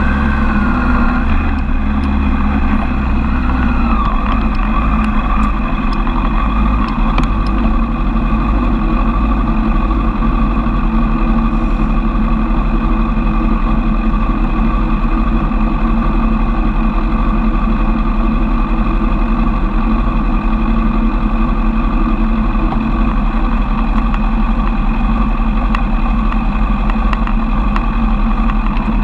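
Suzuki Bandit 1200's inline-four engine idling steadily while the motorcycle stands at a junction, heard close up. A short rise and fall in pitch comes in the first few seconds as the bike edges forward.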